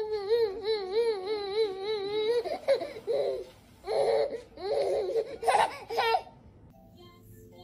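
Baby laughing: one long warbling laugh for the first couple of seconds, then several shorter bursts of laughter and babble that stop about six seconds in.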